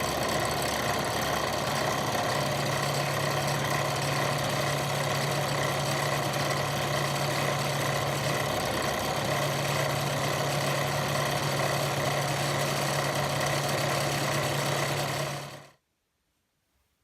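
Bench drill press running steadily with a constant low hum, spinning an edge burnisher to burnish the wetted edges of a latigo leather strap. It stops abruptly a little over a second before the end.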